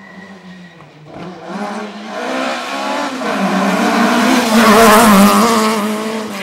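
Mk2 Ford Escort rally car's engine revving hard as it comes up, loudest as it slides past about five seconds in, then pulling away, with tyre noise from the drift.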